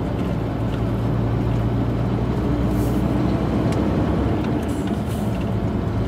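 Heavy truck's diesel engine running steadily as it drives along, heard from inside the cab, with a couple of brief hisses about three and five seconds in.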